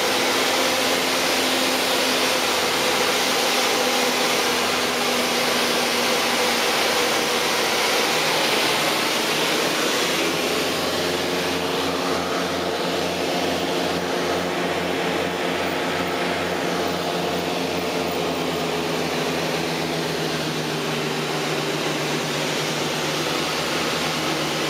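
Cabin noise of a Beechcraft Duchess light twin in flight: the steady drone of its two piston engines and propellers over a constant hiss of air. About ten seconds in, the engine tones shift and a low pulsing beat comes in.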